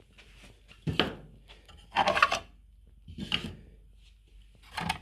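Small 3D-printed plastic scale-model parts being handled by hand: about four short bursts of knocking and scraping as pieces are moved and set down.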